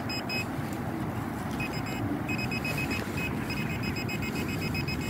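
Handheld metal-detecting pinpointer beeping in the soil: a few short beeps, then from about a second and a half in a fast run of rapid pulses as the probe closes in on a buried metal target. Steady wind noise on the microphone underneath.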